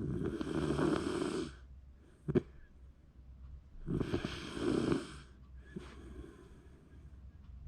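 Shiba Inu snoring in its sleep: two long snores about four seconds apart, each lasting about a second and a half. A short sharp sound comes between the two snores.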